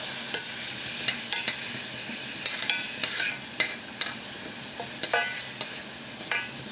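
Butter and sugar glaze bubbling and sizzling in a stainless steel saucepan as it reduces after being deglazed with water, while a metal spoon stirs chestnuts through it, clinking irregularly against the pan.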